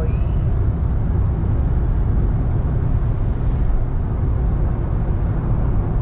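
Road and engine noise inside a moving car at highway speed: a steady low rumble.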